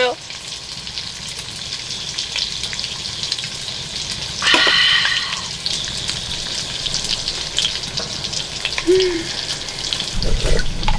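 Food frying in a cast-iron skillet: a steady sizzling hiss with fine crackling pops, swelling louder for about a second near the middle.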